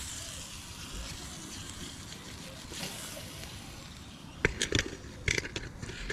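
Aluminium basin being handled and shaken: faint background hiss, then a quick run of sharp knocks and clinks against the metal bowl about four and a half seconds in.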